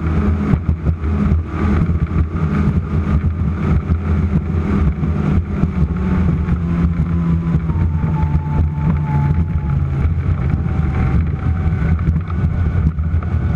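Offshore race boat's engines running steadily at high speed.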